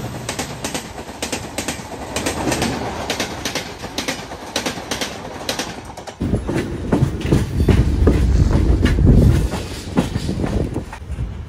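A passing passenger train's coaches rushing by on the next track, their wheels making a rapid clickety-clack over the rail joints. About six seconds in the passing train clears and the sound changes abruptly to a heavier, deeper rumble of the train running.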